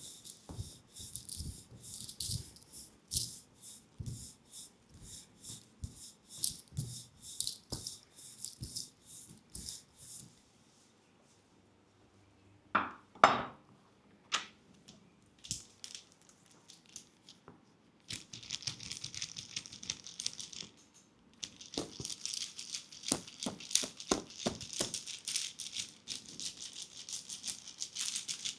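Leg massage by hand on oiled skin: rhythmic strokes a little over two a second, then a pause broken by two sharp cracks near the middle, then a dense, rapid rustling of hands working over the skin.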